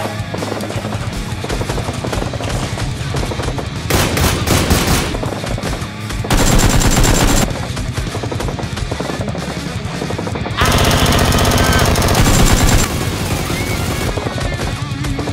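Rapid automatic gunfire, many shots a second in long continuous bursts, with music underneath. A louder pitched sound joins for about two seconds roughly ten and a half seconds in.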